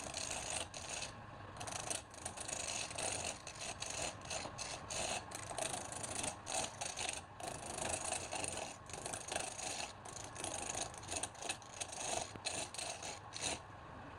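Wood lathe running with a steady hum while a turning tool scrapes and rasps against the spinning wood in irregular strokes.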